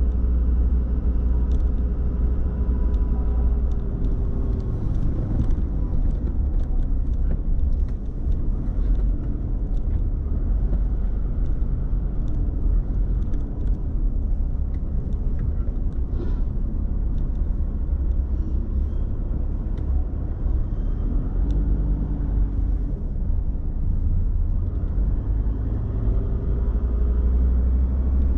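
A car driving, with a steady low rumble of engine and road noise and an engine note that shifts in pitch now and then.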